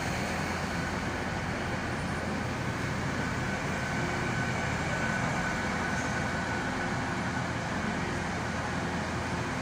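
A TransPennine Express Hitachi AT300 (Class 802) multiple unit running along the platform past the listener. It makes a steady low rumble with a faint steady high whine.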